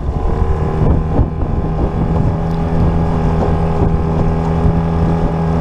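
Outboard motor pushing a small aluminum jon boat, running steadily at cruising speed. Wind buffets the microphone, and the hull knocks now and then on choppy water.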